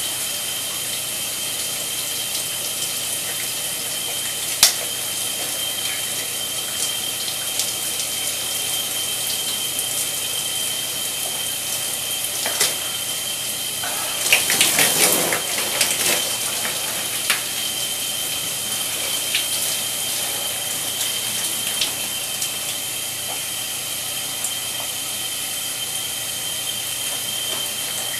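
Shower spray running steadily, with a thin high tone throughout. About halfway through, beer streams and splashes from a punctured can for about two seconds, and a sharp click sounds near the start.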